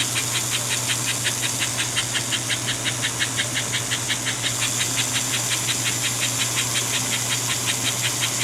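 American Flyer 312 K5 toy steam locomotive running steadily, its motor humming under an even, rhythmic hissing chuff at about five beats a second, with the smoke unit working.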